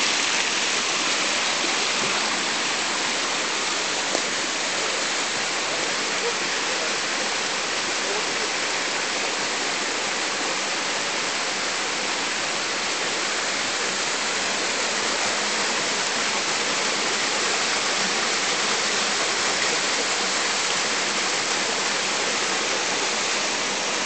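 Small mountain stream rushing and splashing over boulders in a steady, even rush of water.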